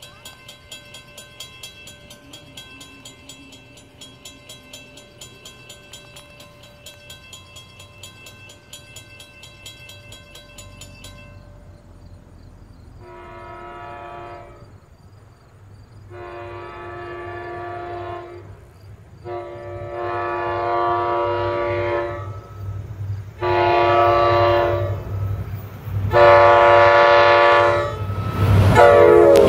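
An NJ Transit GP40PH-2 diesel locomotive sounds its air horn in five long blasts, each louder than the last, as it approaches. Its low engine rumble grows, and the train reaches the microphone at the very end. Before the horn, a bell dings steadily a few times a second and stops about eleven seconds in.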